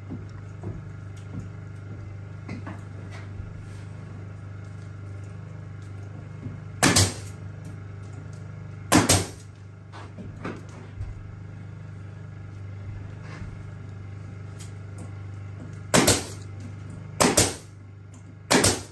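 Pneumatic nail gun driving nails into pine floorboards: five sharp shots, two about seven and nine seconds in, then three in quick succession near the end, over a steady low hum.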